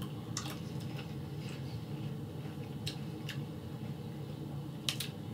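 Tortilla chips being chewed and snapped: a scattering of short, crisp crunches, with a close double crunch near the end, over a steady low hum.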